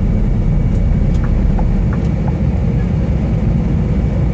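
Steady engine drone and road noise heard inside the cab of a Scania R440 truck cruising at highway speed.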